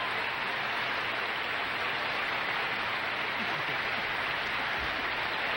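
Audience applauding steadily after a barbershop quartet's song.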